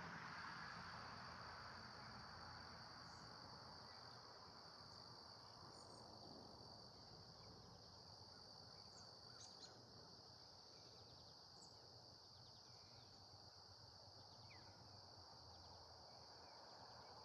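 Faint insects trilling: one steady high-pitched trill runs throughout, with a second, higher trill that comes and goes in stretches during the first half. A few faint short chirps are scattered among them.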